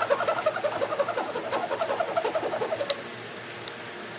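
Small handsaw cutting solid wood flush with quick, short back-and-forth strokes, stopping about three seconds in.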